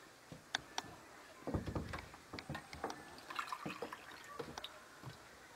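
Hot coffee being poured from a green glazed clay jug into a ceramic cup, with a few light clinks and knocks of pottery being handled.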